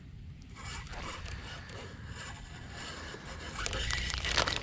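Handling noise from a fishing rod and spinning reel, with faint scrapes and rustles over a low steady rumble. A few sharper clicks come near the end.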